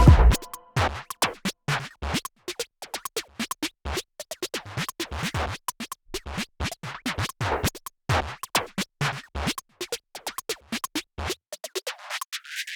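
Background electronic music: a sparse, irregular run of sharp clicks and scratch-like hits, with the bass cut away for a few seconds near the end.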